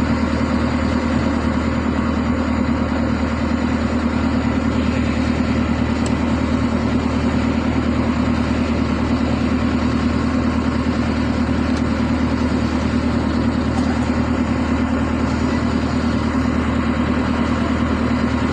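Excavator's diesel engine idling steadily, an even hum that holds the same speed throughout.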